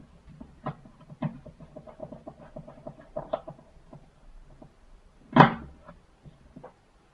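Small screwdriver clicking and scraping against the plastic housing of a BlackBerry Bold 9790 as the phone is worked apart, in a string of small sharp clicks. About five seconds in comes one louder knock, followed by a couple of small clicks.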